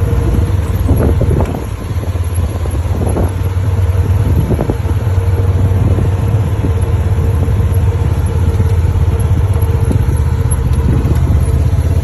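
ATV engine running, a steady low drone.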